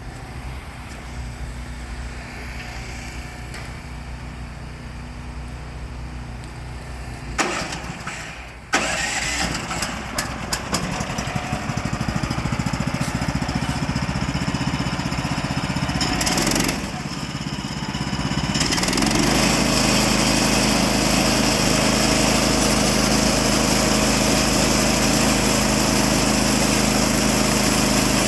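Woodland Mills HM130 Max sawmill's engine being started: it catches suddenly about nine seconds in and runs, dips briefly, then settles from about nineteen seconds in to a louder, steady run. A low steady hum is there before it starts.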